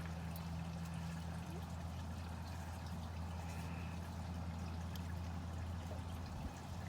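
A steady low hum with a faint hiss over it, unchanging, with no distinct tool or metal-part sounds.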